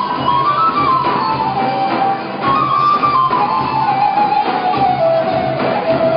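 Macedonian folk band playing an instrumental passage: a lead melody line stepping downward over a steady rhythmic accompaniment.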